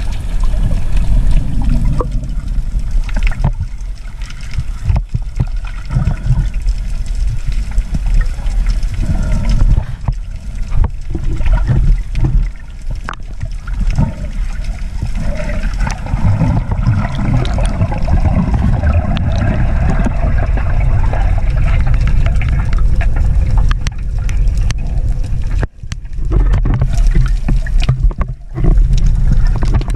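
Underwater sound picked up by a submerged camera: a steady, loud low rumble of moving water with gurgling and bubbling, and scattered knocks.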